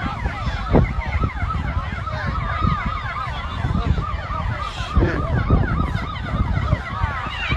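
Several emergency vehicle sirens yelping at once, their rapid rising-and-falling tones overlapping, over a steady low rumble.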